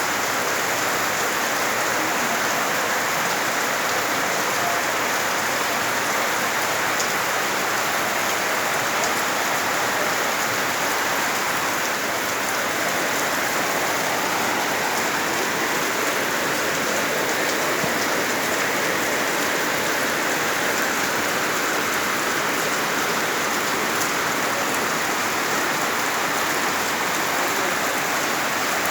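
Heavy rain pouring steadily, a dense, even hiss of drops on surfaces with no letup.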